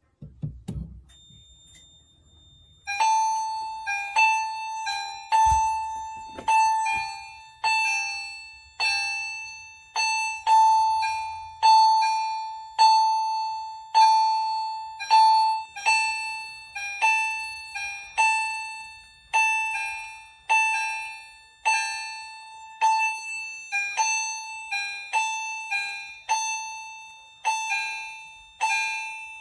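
Fire alarm chime strobes sounding in alarm from a smoke detector tripped with a test magnet. About three seconds in, several chimes start striking a single bright tone roughly once a second, each ringing out, slightly out of step with one another.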